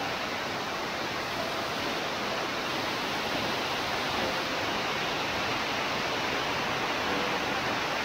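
A waterfall over 100 feet high pouring onto rocks. Water rushes on over the rock bed below in a steady, even wash of noise.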